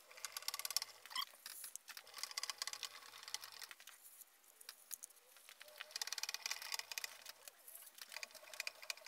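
Rapid, irregular light clicking and rattling as the milling machine's X-axis moves and the DRO read head is slid along its glass scale, in three bursts with quieter gaps between.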